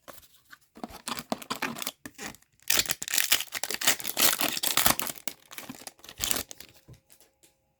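A hockey card pack wrapper being torn open and crinkled in the hands. It starts with a few light rustles, then comes a loud spell of crinkling and tearing in the middle, then a few soft handling sounds near the end.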